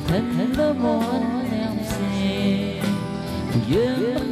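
A song playing, with a singing voice over an instrumental backing. The voice slides up into notes at the start and again near the end.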